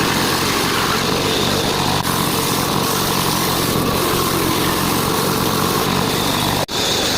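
Power saw cutting wood, running steadily, with a brief break in the sound near the end.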